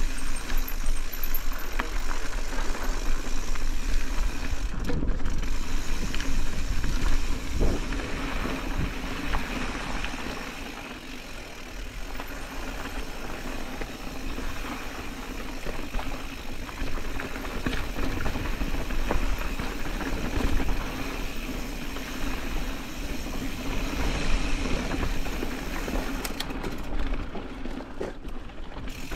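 Specialized Status 140 mountain bike riding down a dirt singletrack: tyres rolling over loose dirt and rocks, with small knocks and rattles from the bike over bumps, the noise rising and falling as the trail changes.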